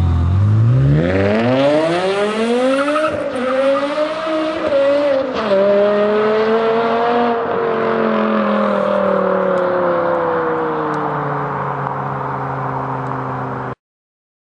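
BMW E60 exhaust under hard acceleration. The engine note rises steeply for about three seconds, dips briefly and climbs again, drops sharply about five seconds in, then falls slowly and fades a little before cutting off.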